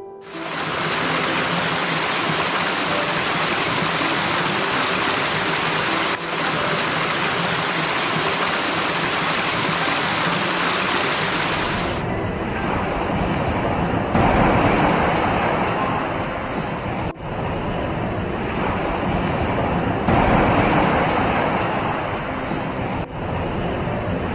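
Steady rushing water noise with faint music underneath. About halfway through it changes to a deeper rush that swells and ebbs twice.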